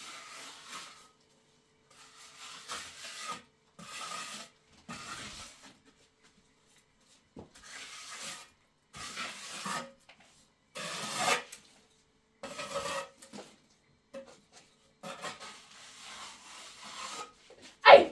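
A hand tool scraping across wood in repeated strokes, each half a second to a second long with short pauses between them. A sharper, louder stroke comes right at the end.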